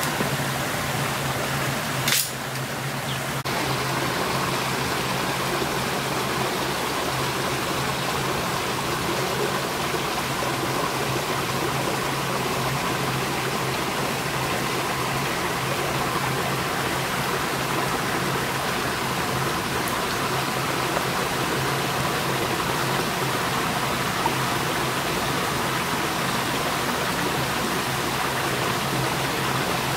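Steady rush of running river water, with one sharp click about two seconds in.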